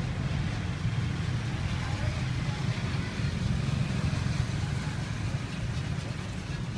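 Steady street traffic noise: a continuous low rumble of passing vehicles and engines.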